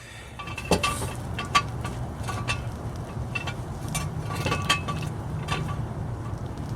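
Car jack being worked to lift a car: about ten irregular metallic clicks and clinks with a short ring, over a low steady hum.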